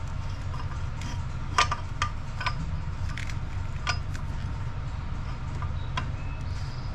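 Steel wrench clinking against a bolt and the surrounding engine metal as it is fitted and worked: about six sharp, briefly ringing clinks, the loudest about a second and a half in, over a steady low hum.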